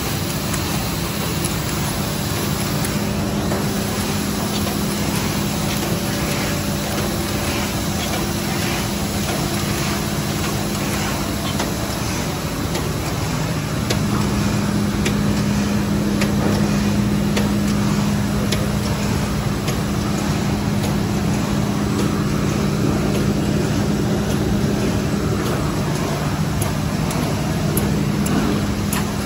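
BOBST SPanthera 106 LE flatbed die-cutter running: a steady mechanical hum with faint, closely repeated clicks, growing somewhat louder about halfway through.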